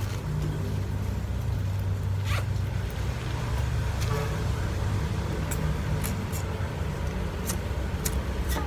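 A steady low rumble of background traffic, with scattered light clicks and rustles of small objects being handled, several in quick succession in the second half.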